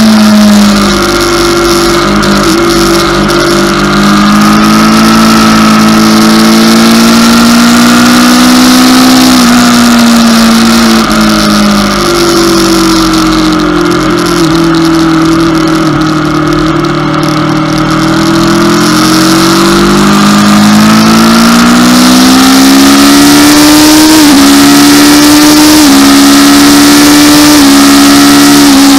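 Aprilia RSV4 V4 engine at track speed, heard from a bike-mounted camera. The revs fall and climb several times through braking, a leaned corner and acceleration, with a few quick gear changes near the end, under a steady rush of wind.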